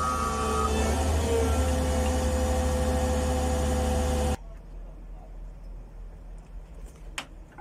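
Diesel engine of a Caterpillar CS74B vibratory soil compactor running steadily, with a last short reversing-alarm beep at the start. The engine sound cuts off suddenly about four seconds in, leaving a faint low hum, and a single sharp click comes near the end.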